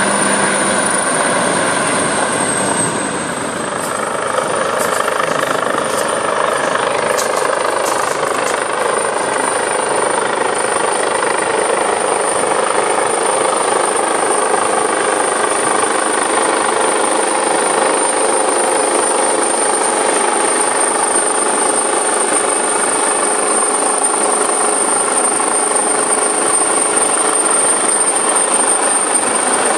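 Coastguard search-and-rescue helicopter flying low overhead: steady rotor and engine noise with a thin high whine that dips slightly in pitch about two seconds in.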